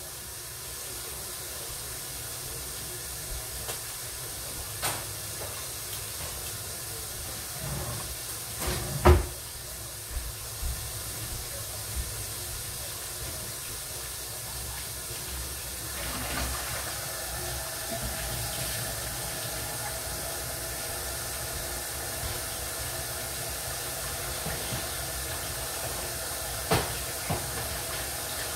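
Steady hiss of food cooking in pots and pans on a stovetop, with a few knocks of cookware and utensils, the loudest about nine seconds in. A faint steady hum joins about halfway through.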